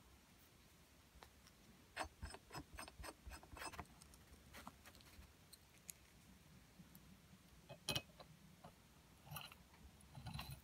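Faint clicks and light taps of small brass grease-gun parts being handled and fitted together by hand: a quick run of clicks a couple of seconds in, then scattered single clicks, one of them sharper, and a few more near the end.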